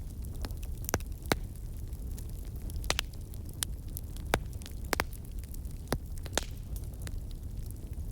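Burning wood fire crackling, with sharp pops at irregular intervals of about a second over a steady low rumble of the flames.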